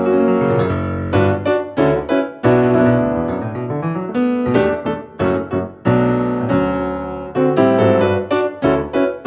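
Piano music: chords and melody notes struck in quick succession.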